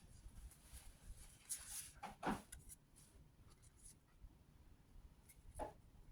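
Faint rustling and light clicks of trading cards being handled and slid against one another as a freshly opened booster pack is sorted through.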